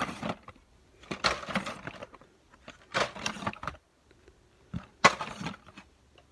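Cardboard-backed plastic blister packs rustling and scraping as they are pulled out of a cardboard case. There are four bursts of handling noise, each under a second.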